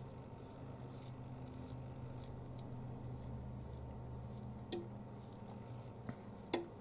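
Thumb rubbing leftover adhesive off the polarizer film of an iPhone 7 LCD: faint, repeated scratchy rubbing strokes over a steady low hum. Two sharp clicks, one a little past halfway and one near the end.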